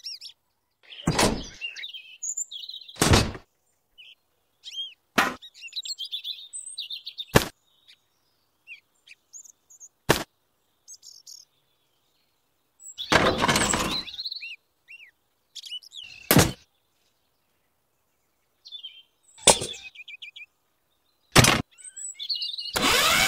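Small birds chirping, broken every two to three seconds by sharp knocks and clunks of small toy objects being set down on a toy trailer.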